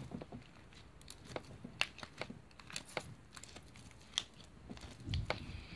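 Sticky, translucent slime being squeezed and stretched in the hands, giving faint, irregular little clicks and pops as it sticks and pulls free. A soft low thump near the end.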